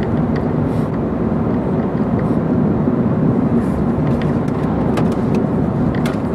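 Steady cabin noise of a Volkswagen Jetta Hybrid driving at road speed: tyre and drivetrain hum heard from inside the car, starting to fade near the end.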